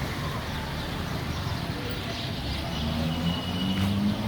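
Steady low rumble of a vehicle engine and road traffic, growing louder near the end, over faint bird chirps and one short high bird whistle about three seconds in.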